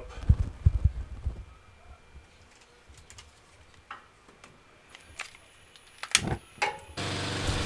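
Low bumps of handling, then a few sharp clicks of a long lighter at a single-ring gas burner; near the end the burner lights with a sudden start and burns with a steady rushing noise.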